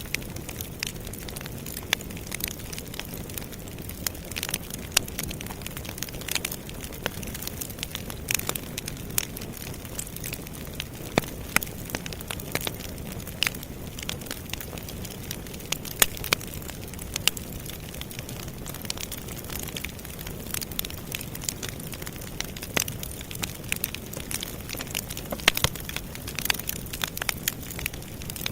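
Campfire burning, with a steady low rumble and frequent irregular crackles and sharp pops from the burning wood.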